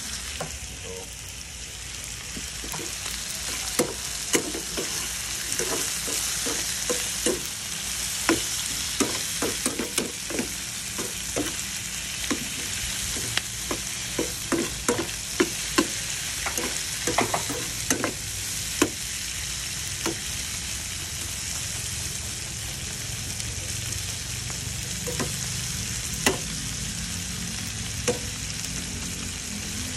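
Garlic shrimp sizzling in a frying pan while a metal slotted spatula stirs and turns them, clicking and scraping against the pan. The clicks come thick and fast for the first twenty seconds or so, then thin out to an occasional tap over the steady sizzle.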